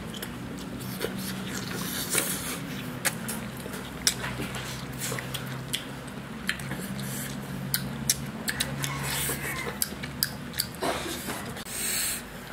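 People eating roasted crocodile with their hands: wet chewing, lip-smacking and short clicks, with meat and skin torn apart, over a low steady hum.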